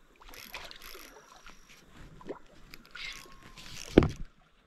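Hooked Murray cod splashing and thrashing at the water's surface in several bursts at the angler's feet. A sharp knock near the end.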